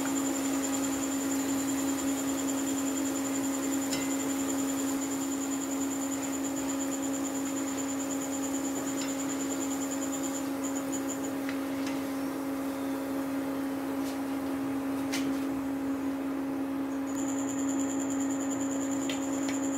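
Pakoras deep-frying in a wok of hot oil with an even sizzle, over a steady electric hum and high whine from the portable electric cooktop. The whine drops out about ten seconds in and returns near the end. A few light clicks come from the metal spider strainer against the wok.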